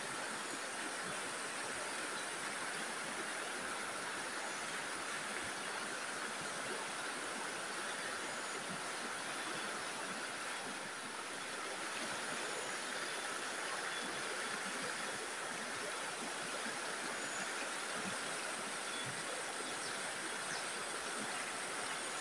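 Steady rush of a stream flowing over rocks, an even, unbroken sound of running water.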